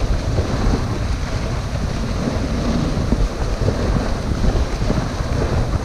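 Wind buffeting the microphone of a camera riding on a moving dog sled, over a steady rushing hiss of the sled running along the packed snow trail.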